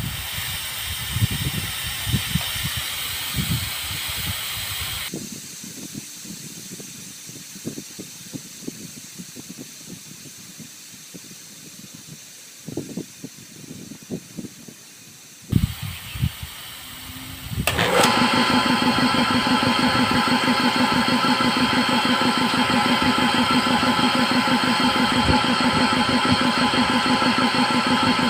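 Compressed air hissing out of an air compressor's tank through an opened valve, loud for the first few seconds, then fainter. Past the middle the belt-driven piston compressor's motor cuts in as the tank pressure drops, and the pump runs steadily. The pressure switch is starting it at a low tank pressure.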